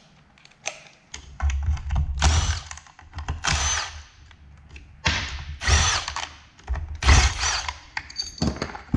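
A cordless power driver backing screws out of a hoverboard's aluminium frame in several short runs, its motor whining up and down in pitch with each run.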